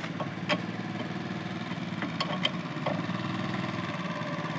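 A vehicle engine idling with a steady hum, with a few light clicks from the wheel spanner being worked on the wheel nuts.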